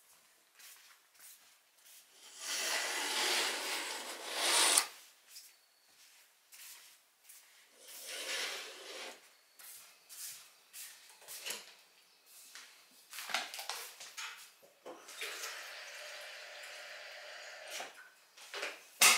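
Household sounds of someone moving about a kitchen: a long rustling swish about two seconds in, another shorter one later, and light knocks and clicks. Near the end comes a few seconds of steady running water as an electric kettle is filled, then a sharp click.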